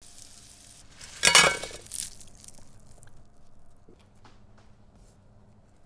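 Salt sprinkled over roast potatoes on a metal baking tray: a loud, dense burst of fine clinking and pattering a little over a second in, a smaller one at about two seconds, then a few faint scattered ticks.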